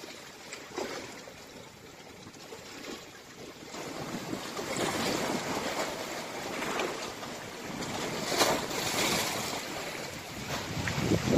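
Sea waves breaking and washing on the shore, with wind buffeting the microphone; the surf gets louder about four seconds in.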